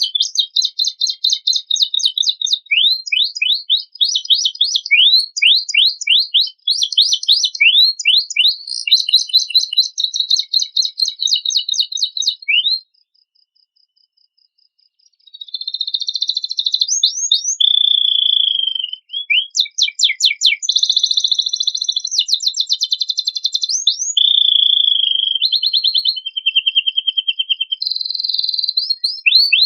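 Domestic canary singing a long, varied song of rapid trills and quick rising sweeps, its song filled with phrases learned from other birds. It breaks off for about two seconds midway, then resumes.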